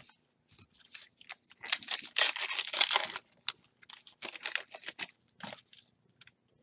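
Topps Heritage baseball card pack being torn open, its wrapper crinkling loudly for about a second and a half around two seconds in, followed by lighter crinkles and rustles as the torn wrapper and cards are handled.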